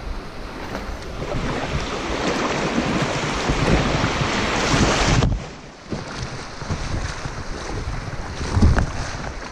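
Rushing river water around a kayak just after a rapid, with wind buffeting the microphone. The loud hiss drops off suddenly about five seconds in, leaving a quieter wash of water and wind.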